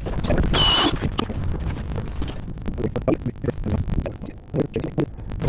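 Wind buffeting the microphone as a steady low rumble, with scattered knocks and scrapes of gear being handled on the ice, and a short scraping hiss about half a second in.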